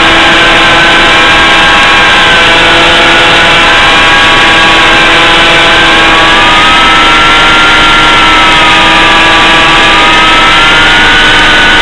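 Electric motor and propeller of a BlitzRCWorks Sky Surfer RC glider running steadily, with a whine that drifts slowly up and down in pitch over a few seconds.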